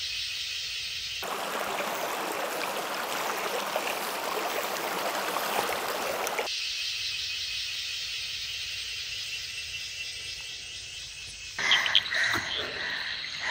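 Forest insect chorus, a steady high-pitched buzzing, with the rush of stream water covering it for about five seconds in the middle. Near the end the buzzing gives way to scattered knocks and rustles.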